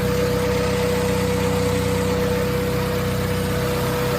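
1995 Honda Civic ESi engine idling steadily after an overhaul that cured its lost compression, with a steady whine over the engine note.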